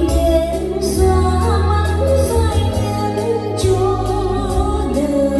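A song with a sung vocal line over a steady bass, played through a stage sound system's loudspeakers.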